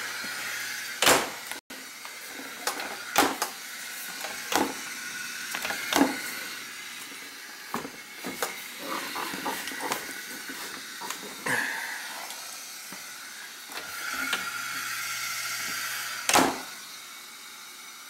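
Knocks, clicks and rubbing as an undercounter ice machine's bin, ice scoop and stainless door are handled and wiped down, over a steady hiss; the sharpest knocks come about a second in and again near the end.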